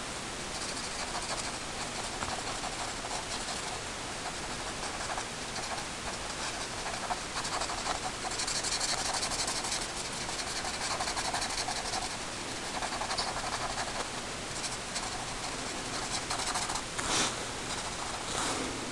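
Pen tip scratching across paper in quick short strokes, inking in solid black areas of a drawing, louder for a few seconds in the middle. A brief louder scrape near the end.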